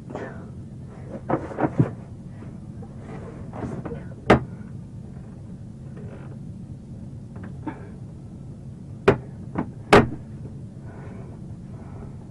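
A series of sharp knocks and bangs: a quick cluster about a second and a half in, a single loud one about four seconds in, and three more around nine to ten seconds in, over a steady low hum.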